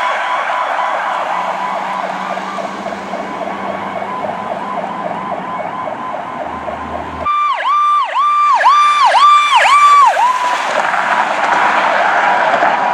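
Emergency vehicle sirens sounding the Powercall (whoop) tone. First a fainter siren pulsing rapidly over road noise; then, after a sudden change about seven seconds in, a louder siren whose pitch swoops down and back up about twice a second.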